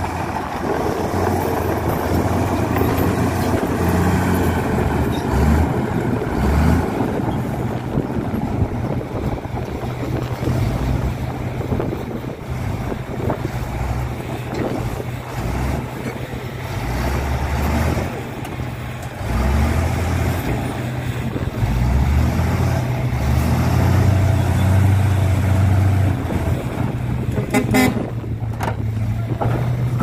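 Diesel engines of a Komatsu D65-P crawler bulldozer and a 24-tonne dump truck running under load as the dozer blade pushes the stuck truck: a steady low drone that swells and eases. Near the end comes a short horn toot.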